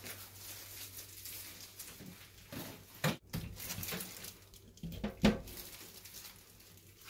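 Plastic water filter cartridge, tubing and fittings being handled at a stainless steel sink: a few knocks and clatters, the loudest about three and five seconds in.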